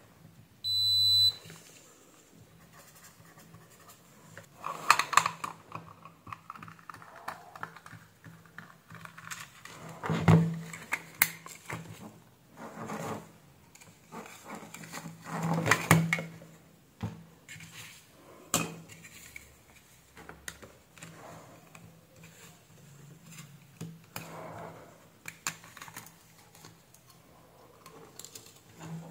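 A short electronic beep from a digital multimeter about a second in, then scattered clicks, taps and plastic rattles as a computer mouse's shell is pulled open and its circuit board lifted out, over a faint steady hum.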